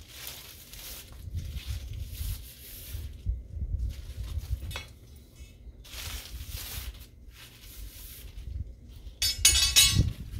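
Low wind rumble on the microphone while a stroller wagon's canopy frame is handled, with scattered rustles and a click about halfway. Near the end comes a quick, loud run of rattling clinks and clicks.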